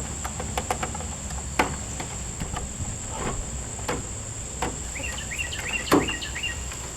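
Scattered sharp clicks and knocks over a steady high-pitched insect drone, with a bird chirping a quick run of repeated notes about five seconds in.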